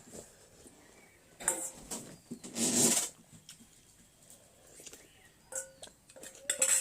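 Eating sounds from a bowl of thukpa noodle soup: a few light utensil clicks and one louder rushing noise lasting about half a second near the middle.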